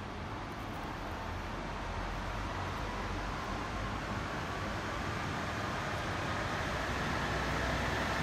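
Highway coach driving slowly toward the listener, its engine running and growing gradually louder as it approaches.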